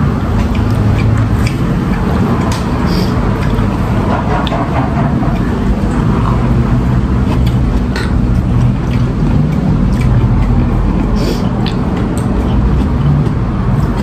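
A steady low rumbling background noise, with faint scattered clicks and taps of a spoon and chopsticks stirring noodles in a paper bowl of soup.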